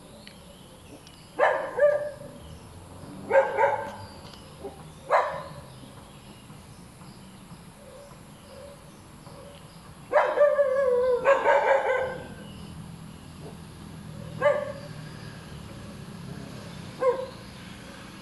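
A short-haired dog barking: short barks singly or in pairs every couple of seconds, a longer drawn-out call with falling pitch about ten seconds in, then two more single barks.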